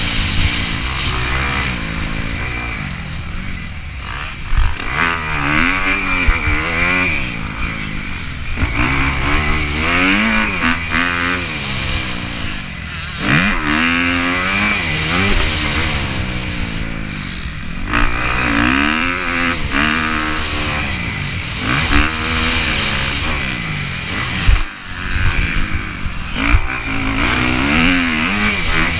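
Motocross bike engine under race throttle, heard from the rider's helmet camera, revving up and dropping back over and over as the rider accelerates, shifts and backs off for corners. A few sharp knocks cut through the engine noise.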